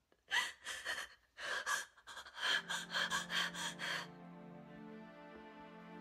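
A woman sobbing, with sharp gasping breaths in uneven bursts for about four seconds. Soft, slow sad music with low sustained notes comes in partway through and carries on alone after the sobbing stops.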